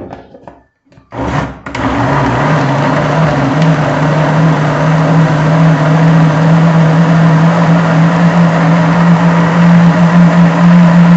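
Countertop blender starting about a second in and then running steadily at full speed, puréeing cooked green corn with condensed milk: a loud motor hum with the whirr of the blades, its pitch stepping up a little a few seconds after it starts.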